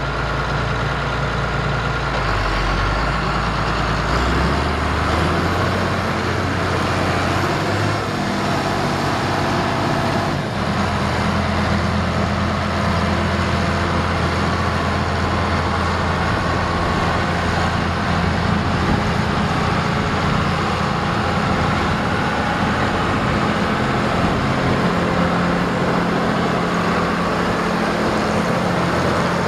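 John Deere 8440 4WD tractor's 7.6-litre six-cylinder turbo diesel running as the tractor drives. The engine note steps up in pitch within the first ten seconds or so, then holds steady.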